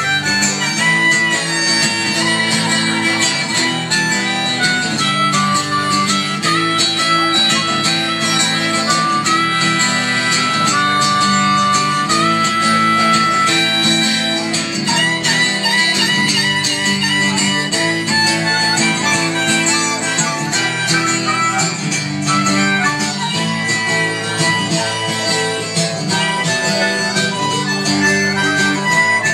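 Harmonica played into a microphone and amplified through a PA speaker, in long held notes over strummed guitar accompaniment.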